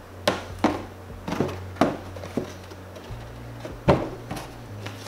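Handling noise from unpacking a drone: a string of sharp knocks and thumps as the foam carrying case and drone are moved about and set down on a table, the loudest about four seconds in.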